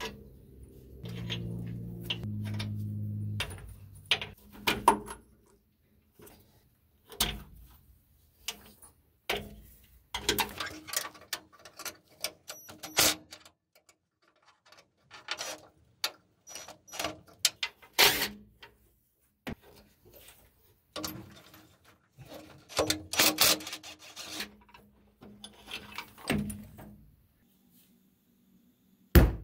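A DeWalt cordless power tool's motor runs in two short bursts about a second in. Then come scattered metallic clicks and clanks of wrenches and brass air-line fittings as an air brake relay valve is disconnected and unbolted.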